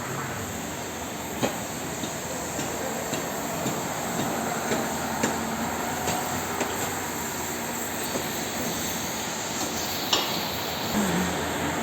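Building-site noise: a steady rumble and hiss, with sharp metallic knocks and clanks every second or few seconds.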